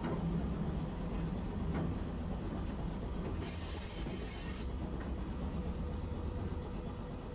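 Tosaden streetcar running by with a low rumble; about three and a half seconds in, its steel wheels squeal on the rails with a high, steady tone for just over a second.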